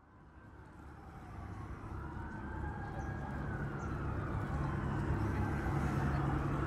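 City street ambience fading in from silence: an emergency-vehicle siren wails slowly up and down over a steady low rumble of traffic.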